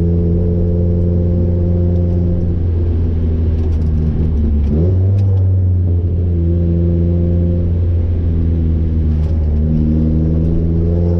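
Car engine with a straight-through ISR single-tip blast-pipe exhaust, heard from inside the cabin while driving: a loud, steady drone that rises in pitch about halfway through as the revs change, then settles at the higher note.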